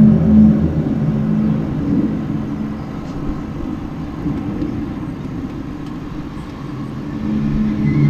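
A low, droning hum of several steady tones together; it is strongest at first, sinks lower through the middle and swells back near the end. It is the unexplained outdoor noise the recorder calls strange and says has been recurring.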